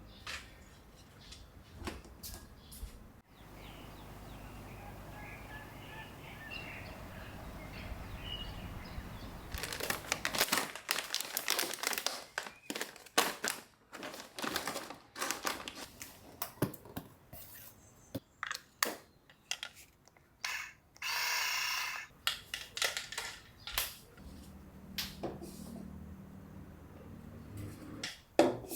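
Scattered light clicks, taps and knocks of things being handled, over a steady low hum for the first several seconds. A brief hiss of about a second comes about two-thirds of the way through.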